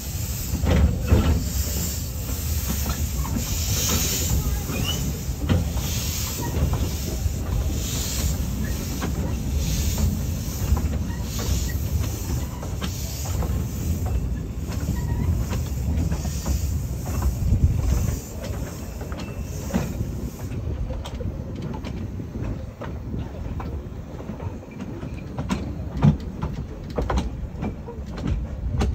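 Narrow-gauge steam train rolling slowly past, its coach wheels rumbling and clicking over the rail joints, with regular puffs of steam hiss from the locomotive. The hiss stops about two-thirds of the way through, leaving a quieter rumble and a few clicks.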